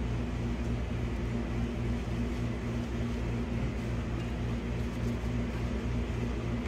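Steady low mechanical hum of a running machine, with several steady low tones under a faint even hiss.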